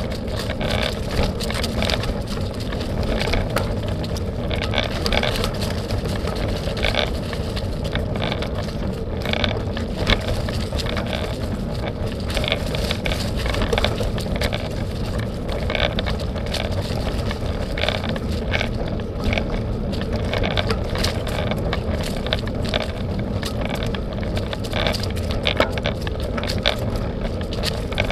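Bicycle being ridden along a dirt trail: a steady low rumble with frequent short rattles and knocks.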